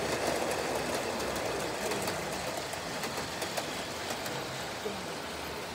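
O gauge model train, a locomotive hauling coaches, running along metal track: a steady rumble with light clicks from the wheels, slowly fading as it moves away.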